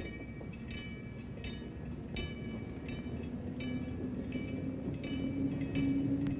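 A Pacific Electric Red Car interurban running with a steady low electric hum that rises slightly in pitch near the end, while a bell strikes at an even pace, about once every 0.7 s.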